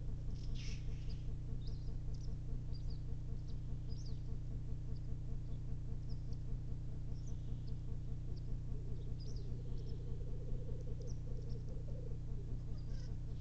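Black grouse males lekking: a continuous, rhythmic low bubbling coo chorus, with one bird's bubbling swelling louder from about nine to twelve seconds in. A single hissing call comes just under a second in, and small-bird chirps are scattered above.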